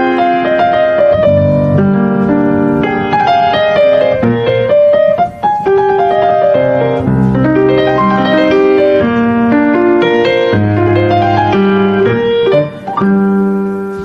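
Instrumental background music: a slow keyboard melody of held notes over low bass notes, with two brief pauses.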